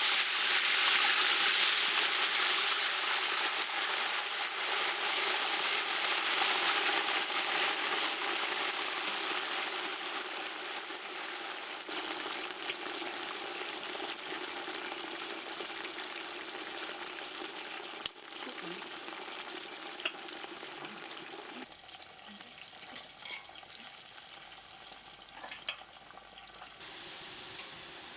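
Potato slices frying in hot oil: a loud, steady sizzle that slowly dies down, with a few sharp pops and spatters.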